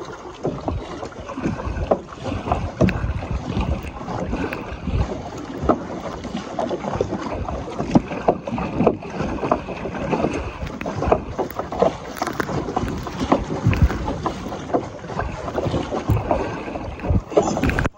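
Choppy lake water splashing against a kayak hull, with wind on the microphone and frequent short knocks and rattles of gear in the boat.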